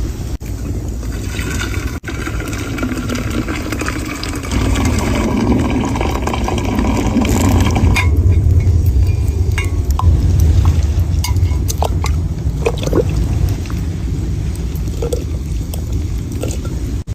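Water being poured into a vessel for several seconds. Then a low rumble with a few scattered sharp clicks.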